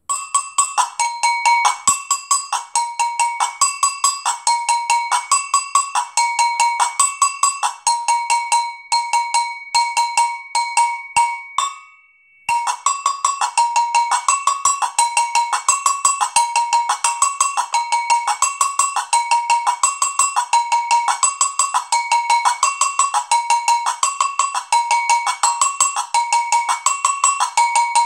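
Two-bell agogô struck with a wooden stick, playing a fast, steady samba rhythm that alternates between the low and high bell. The pattern breaks off briefly near the middle and starts again.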